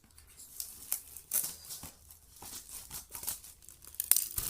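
A gift pouch being opened by hand: irregular crinkling and tearing of the packaging, with sharp rustles about a second and a half in and again near the end.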